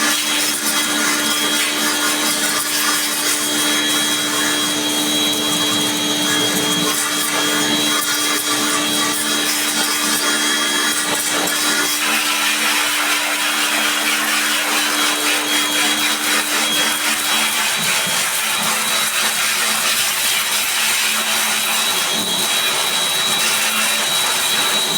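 A motor-driven machine running steadily, a loud even rushing noise with a hum under it; the low hum drops away about three quarters of the way through.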